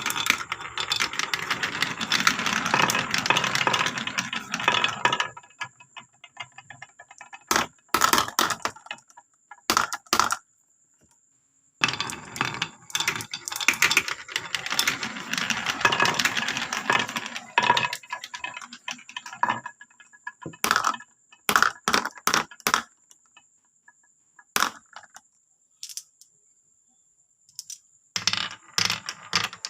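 Many marbles rolling and clattering down a marble run track: a dense rush of clicks and rattles, a short pause, then a second long wave, with scattered single clicks of stray balls between and near the end.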